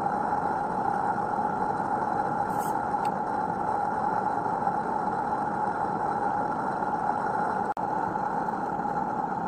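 Steady, even hiss from a stationary butane-fired live-steam garden-railway locomotive (a Forney rebuilt from an Accucraft Emma), with no exhaust beat. It breaks off for an instant about three-quarters of the way through.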